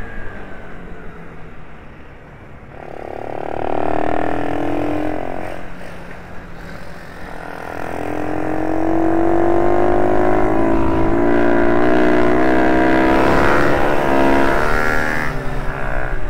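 Minibike engine heard on board, its note falling and rising with the throttle: eased off and lowest about two seconds in, pulling up again around three seconds, then climbing from about eight seconds and held high along the straight.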